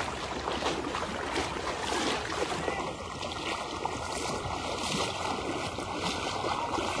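Floodwater rushing across a submerged road: a steady wash of moving water.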